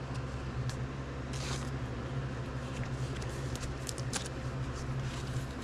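Trading cards and plastic card holders being handled and sorted: scattered soft rustles and light clicks over a steady low hum.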